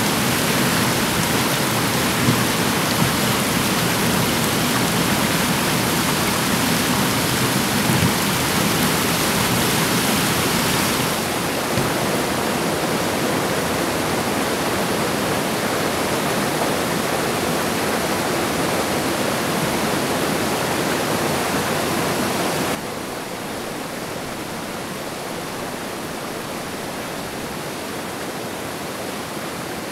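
Rushing whitewater of a river cascading over rocks, a steady loud hiss. It drops suddenly a little in level about eleven seconds in, and more about two-thirds of the way through.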